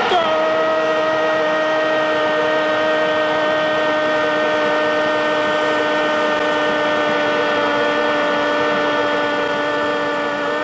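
A football commentator's long drawn-out "gooool" goal cry: one held, shouted note that sags slightly in pitch for about ten seconds before breaking off, over stadium crowd noise.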